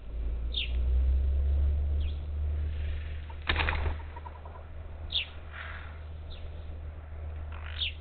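Birds at a feeder: short, high, falling chirps every second or two over a low rumble that fades about halfway through. A single sharp knock about three and a half seconds in.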